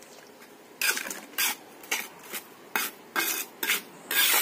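Steel trowel scraping and mixing wet cement mortar on a concrete floor, a batch for patching a water tank: a run of about seven short scraping strokes starting about a second in, the last the longest and loudest.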